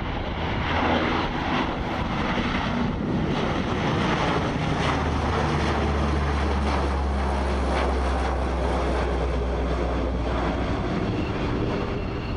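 Lockheed C-130H Hercules flying low overhead, its four T56 turboprop engines and propellers droning steadily. A deep hum swells about five seconds in and drops away again about eleven seconds in.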